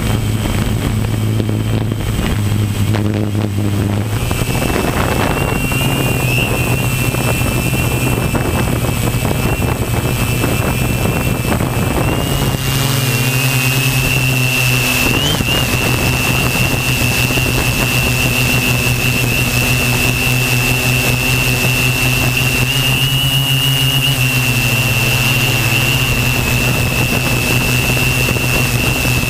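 Multirotor drone's electric motors and propellers running in flight, heard close up from a camera on the airframe: a steady hum with a thin high whine that comes in about four seconds in and rises slightly and grows louder about twelve seconds in as the motor speed changes.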